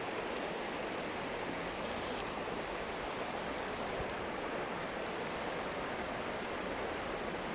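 Steady rush of flowing stream water, an even hiss with no breaks, with a brief higher hiss about two seconds in.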